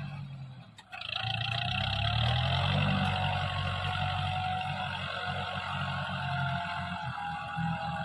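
Kubota 45 hp 4WD tractor's diesel engine working hard under load as it hauls an overloaded trailer of potato sacks across soft field ground. The sound dips briefly just before a second in, then comes back with the engine pitch rising for a moment and settling into a steady drone.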